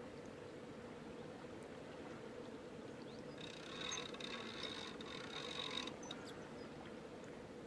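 Fixed-spool fishing reel making a rapid clicking whirr for about two and a half seconds, starting about three seconds in, while a hooked fish pulls on the bent rod. Under it is a steady soft background hiss.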